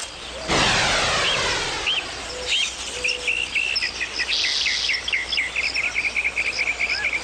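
Cartoon soundtrack of birds chirping: scattered short chirps, then a rapid run of repeated chirps, over a steady hiss that starts about half a second in.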